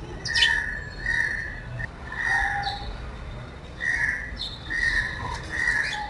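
Sparrows chirping: a run of about six short calls, repeated roughly once a second.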